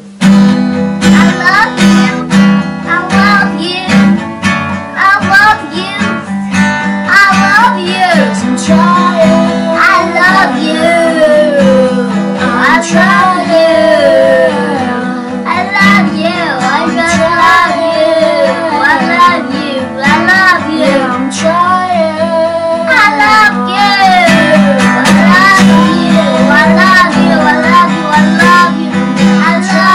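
A young child singing a slow song, accompanied by a strummed acoustic guitar.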